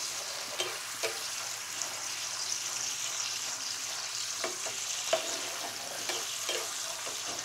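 Ketchup sauce with tempered mustard seeds sizzling and bubbling in a nonstick frying pan over a high flame, with a steady hiss. A spatula stirs through it, scraping the pan in short strokes every second or so.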